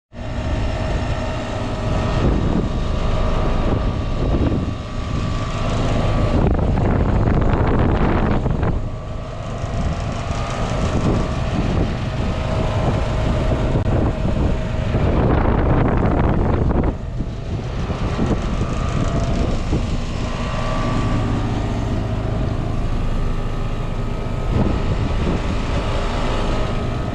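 2013 Trane XB13 heat pump outdoor unit running in heat mode: a steady compressor hum with the fan, and a few held tones over it. Twice, a louder rush of noise swells over it for a couple of seconds.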